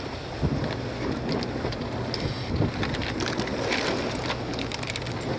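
Wind and choppy sea water splashing against a small boat: a steady rushing noise with scattered small clicks and knocks over a low steady hum.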